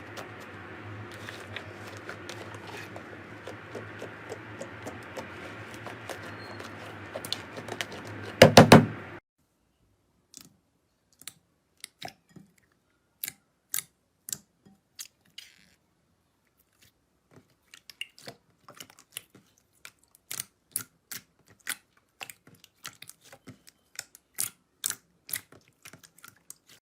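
Slime being worked by hand: soft crackles over a steady background hum, with a loud burst of crackling about eight seconds in. Then the hum stops and sharp, scattered clicks and pops come against silence, thicker in the second half.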